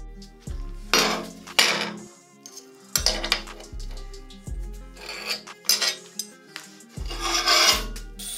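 Scraping strokes on a rusty steel plate as it is marked out, about four of them, each lasting up to a second, over background music with a regular deep bass beat.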